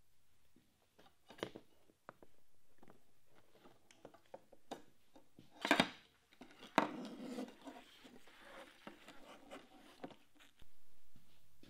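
Wet, rusty flat metal strips being handled and set down on a hard work surface. There are a few light clicks, a louder knock just under six seconds in and another about a second later, then scraping and rubbing.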